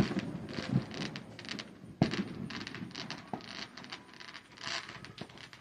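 Fireworks popping and crackling, with sharp bangs at the start and about two seconds in among a run of small crackles.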